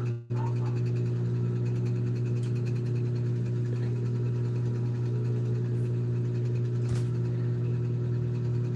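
A steady low machine hum with several fixed tones above it. It cuts out for a moment just after the start, and there is one sharp click about seven seconds in.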